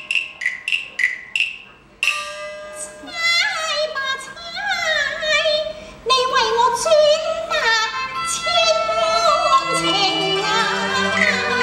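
Chinese opera music: a quick run of ringing percussion strikes, then from about two seconds in a female performer sings a high, wavering, gliding line over sustained instrumental accompaniment.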